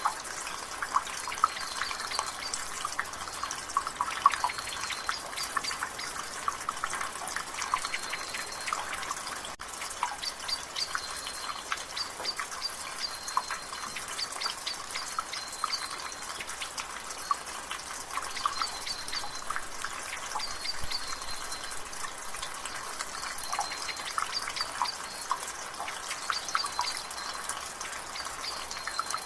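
Rainwater dripping from a gutter in quick, irregular drips over a steady hiss of drizzle. A bird in the background repeats a short, high call every couple of seconds.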